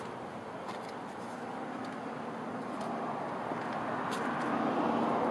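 Steady outdoor background noise of road traffic, growing slowly louder toward the end, with a few faint clicks.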